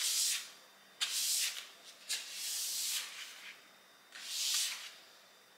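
Broom bristles swishing across a wooden floor in four separate strokes, sweeping dust toward a dustpan; the third stroke is the longest.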